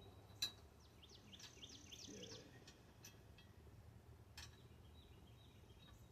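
Near silence, with a bird chirping faintly in a quick run of high notes about a second in, and two small sharp clicks, one near the start and one about four seconds in.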